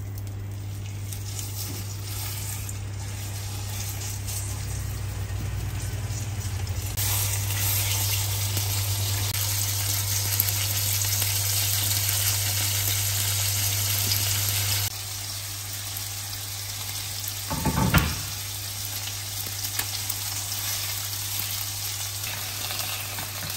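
Chicken breasts sizzling in hot oil in a nonstick frying pan, with a steady low hum underneath. The sizzle grows louder for several seconds in the middle, then eases. A brief loud knock comes about three-quarters of the way through.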